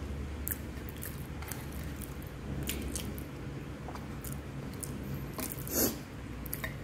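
Chewing with wet mouth clicks and smacks, then fingers tearing apart a piece of dried fish on a plate, with one louder crackle near the end.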